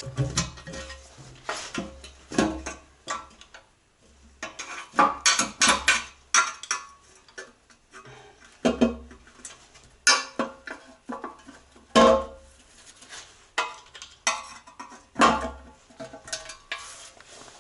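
Metal tools and engine parts clinking and clattering as an engine is worked on, in irregular knocks and clicks, some with a short metallic ring.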